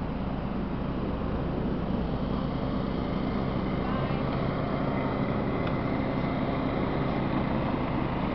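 Wind buffeting the camera microphone in a snowstorm: a steady low rumbling noise that runs on without breaks.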